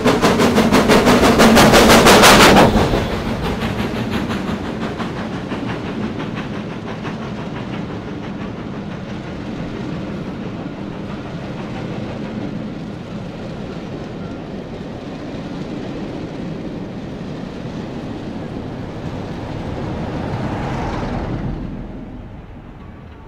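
GWR Castle-class four-cylinder 4-6-0 steam locomotive passing with a rapid, even beat of exhaust beats, loudest for the first two to three seconds. Its train of coaches follows with a steady rolling rumble over the rails, swelling briefly near the end before fading away.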